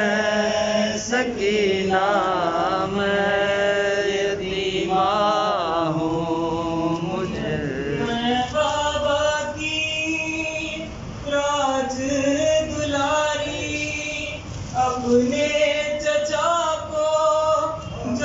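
A solo male voice reciting a nauha, a Shia mourning lament, in a chanted melody without accompaniment. It moves in phrases with short pauses between them, and its long held notes waver.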